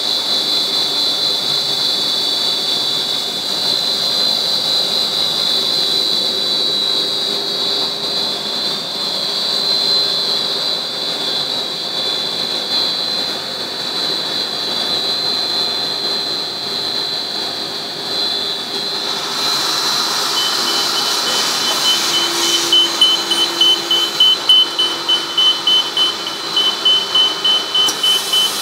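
HDPE film extrusion machine running, with a steady high whine. About two-thirds of the way through a hiss comes in, then a rapid rhythmic pulsing at about two beats a second.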